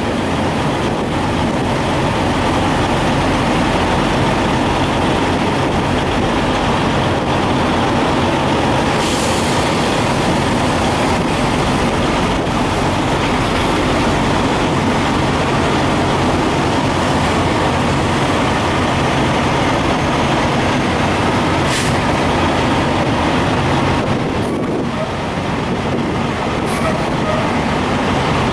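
Diesel engines of parked semi trucks idling: a steady, loud low rumble.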